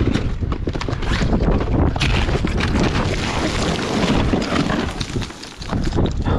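Wind buffeting the microphone, with irregular knocks and rattles throughout and a brief lull about five seconds in.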